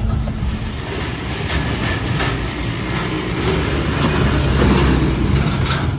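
A Mahindra 4x4 driving over a rough, rocky track: the engine runs with a loud low rumble while the body rattles and knocks unevenly over the bumps.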